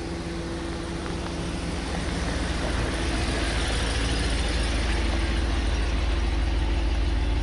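Ram Power Wagon's 6.4-litre Hemi V8 running low and steady as the truck crawls slowly directly overhead, its rumble growing gradually louder as it comes over.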